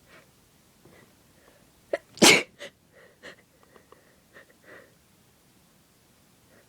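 One loud human sneeze about two seconds in, brought on by sniffing ground pepper, with a short sharp sound just before it and a few small faint breaths after.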